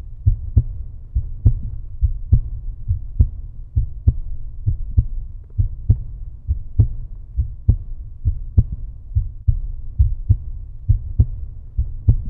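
End-screen soundtrack: a deep bass beat with strong, evenly spaced thumps a little more than one a second over a continuous low rumble, and lighter ticks between the thumps.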